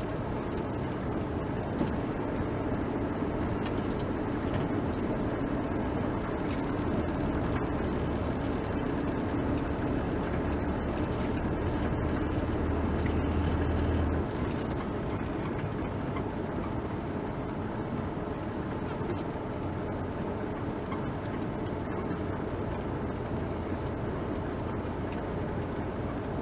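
A car being driven: steady engine and road noise. The engine note builds gradually and then eases off about halfway through.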